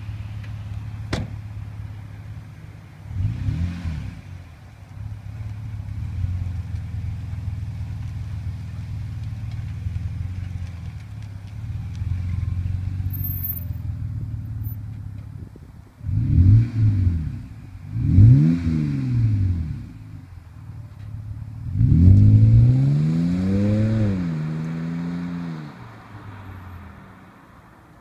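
BMW 525i straight-six with a custom exhaust idling, with a door shutting about a second in and one short blip of the throttle. Then two hard revs, and a long rising pull as the car accelerates away, its exhaust note fading into the distance near the end.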